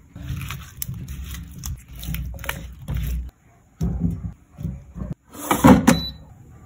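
Kitchen handling sounds: paprika shaken from a jar over potato wedges in a glass bowl, then the wedges knocked and set into an air fryer's metal basket with metal tongs. A louder scrape or clatter comes about five and a half seconds in.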